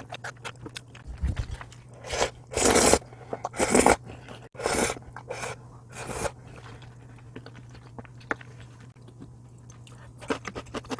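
Close-up eating sounds: a few loud slurps from a small bowl of leftover chicken sauce, then crisp crunching of pickled chicken radish cubes near the end.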